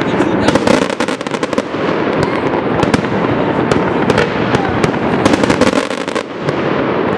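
Fireworks display: aerial shells bursting in a dense, almost unbroken string of bangs and crackles, easing slightly about a second in and again near the end.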